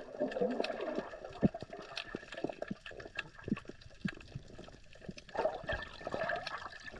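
Underwater sound picked up through a GoPro's waterproof housing: muffled water movement with many small clicks and ticks, and two bursts of bubbling, one at the start and one about five and a half seconds in.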